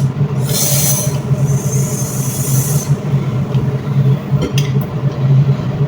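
A steady low mechanical hum, with a hiss from about half a second in until about three seconds in.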